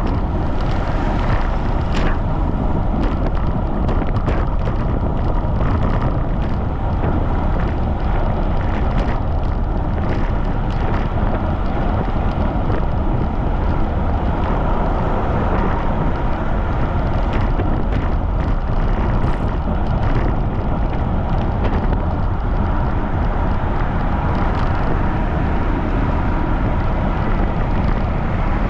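Strong wind buffeting the microphone of a camera riding on a road bicycle at speed, mixed with steady tyre and road noise and scattered light clicks.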